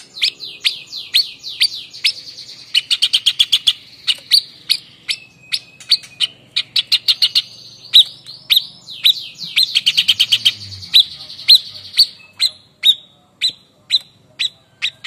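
White-breasted babbler (Stachyris grammiceps) singing its sharp 'ngepik' variation: loud, short falling 'pik' notes a few per second, broken twice, about three and ten seconds in, by quick rattling runs of rapid notes.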